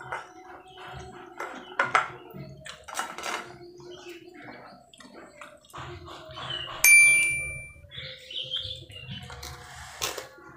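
Fingers picking up rice from a glass plate, with soft rustling and small clicks and taps on the glass. About seven seconds in, a single high, clear ding rings out for about a second; it is the loudest sound.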